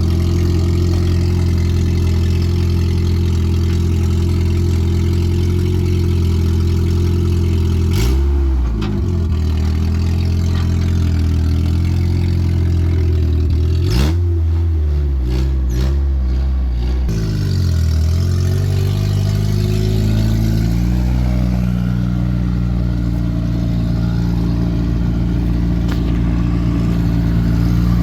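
Car engine running while driving. The revs rise sharply about eight seconds in and again about fourteen seconds in, fall back over the next few seconds, then hold steady.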